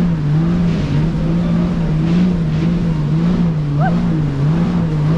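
Jet ski engine running steadily at speed, its pitch wavering gently up and down, over a dense rushing noise.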